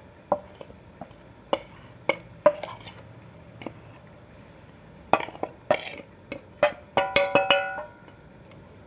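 Stainless-steel spoon clinking and tapping against a steel plate and bowl as dry spice powders are spooned in: scattered sharp clinks, then a quick run of ringing metallic clinks about seven seconds in.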